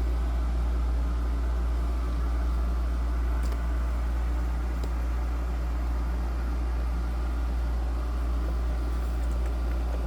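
A steady low hum with two faint clicks a few seconds in.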